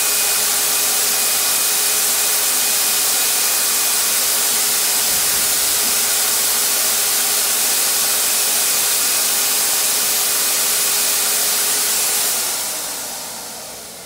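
Harbor Freight HVLP turbine paint sprayer running: a loud, steady rush of air with a faint whine while paint is sprayed. About two seconds before the end the turbine is switched off and winds down, fading gradually.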